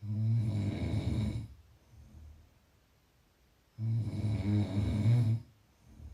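A person snoring: two loud, rough snoring breaths about four seconds apart, each lasting about a second and a half and followed by a much softer breath out.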